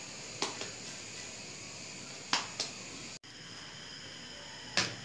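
Quiet room hiss broken by four short, sharp clicks, two of them close together in the middle, and a brief dropout in the sound a little after three seconds.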